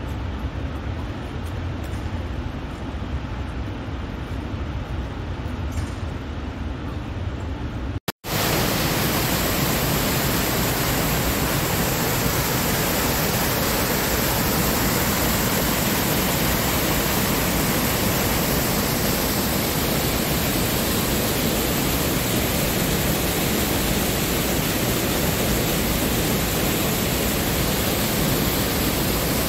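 Rushing water of a large waterfall heard from a distance, a steady low rumble. About eight seconds in it cuts out for a moment, and a louder, hissier rush of water follows, close to cascading white water.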